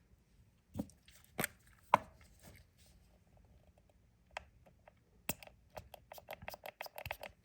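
Light knocks and clicks of small items being handled on a tabletop: a few separate knocks in the first two seconds, then a quick run of small ticks and clicks near the end.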